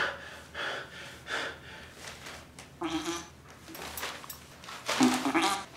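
A man straining on the toilet: a run of short breathy bursts, then two brief low-pitched sounds, one about three seconds in and one near the end.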